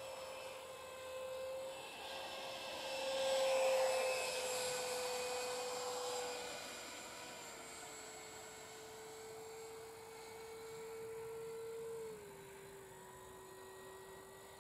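The electric ducted fan of a Freewing F9F Panther model jet whines steadily as it flies past, with a rushing swell that is loudest about three to four seconds in. The whine steps down in pitch twice, about halfway through and again near the end.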